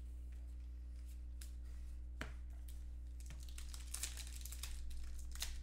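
Trading cards and their plastic packaging being handled: scattered crinkling and rustling that gets busier in the second half, over a steady low electrical hum.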